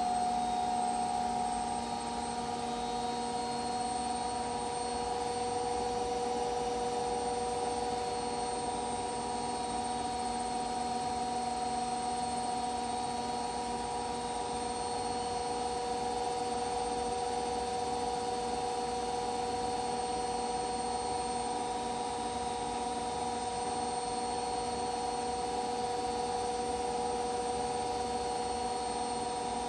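Washing machine running, its motor giving a steady hum with a whine over it.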